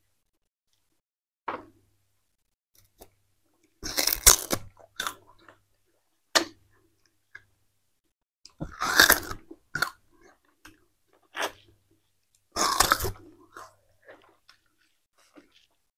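Peeled sugarcane being bitten and chewed close to a clip-on microphone. There are loud, crackling crunches of the fibrous cane about 4, 9 and 13 seconds in, with softer chewing crunches between them.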